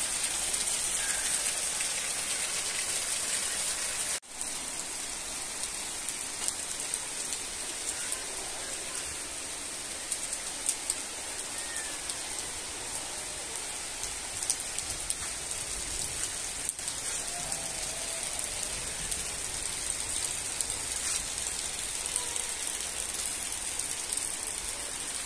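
Heavy rain falling steadily, a dense even hiss, with a brief dropout about four seconds in.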